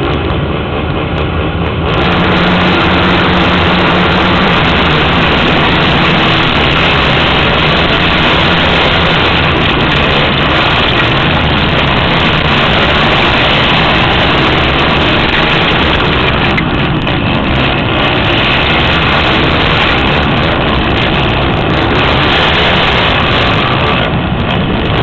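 Several race ATV engines revving on the starting line. About two seconds in, the field launches at full throttle, and the rider's own quad then runs hard and continuously in a close pack of other quads.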